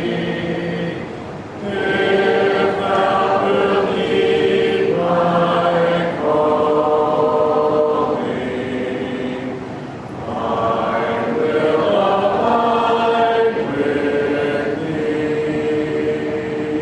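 A congregation singing a hymn in unaccompanied harmony, with long held notes in phrases that break briefly about a second and a half in and again around ten seconds in.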